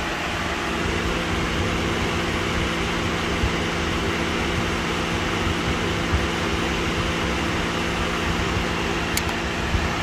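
Steady whir of the car's electric cooling fan running, with a few steady hum tones under it, and one light click near the end.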